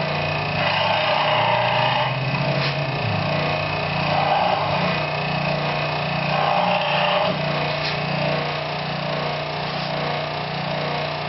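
Workshop power saw running with a steady motor hum, with three short stretches of cutting as small wooden bar-stool pieces are cut for a birdhouse.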